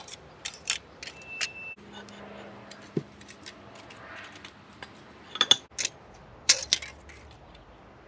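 Light metallic clicks and clinks of a steel straightedge and feeler gauge blades being set on and worked across an aluminium cylinder head deck, checking it for flatness. The clicks come in scattered handfuls, loudest about five and a half seconds in and again a second later.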